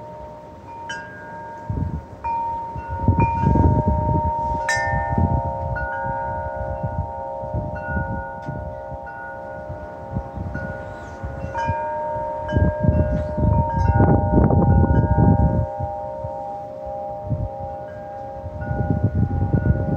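Wind chimes ringing in gusty wind, several long tones struck at irregular times and overlapping. Wind gusts rumble underneath, swelling about three seconds in and again past the middle.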